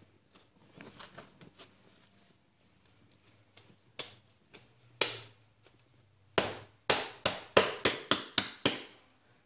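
A hand tool pushed forwards in short, sharp strokes to make shavings for the slime. A few scattered strokes come first, then a quick run of about three a second near the end.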